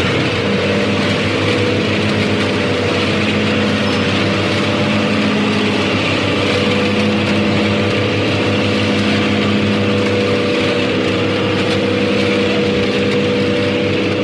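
Harvester running steadily, its engine giving an even drone with a constant pitch and level.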